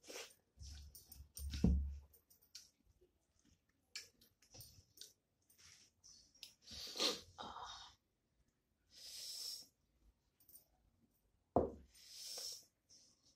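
Close-miked eating sounds: chewing, mouth smacks and small clicks as rice and fish curry are eaten by hand, with breathy exhales between mouthfuls. A low thump about a second and a half in is the loudest sound.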